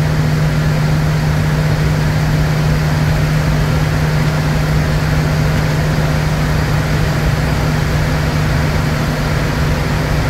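Steady flight-deck noise inside a Bombardier Challenger 350 business jet in flight: rushing air and engine noise with a constant low hum, unchanging throughout.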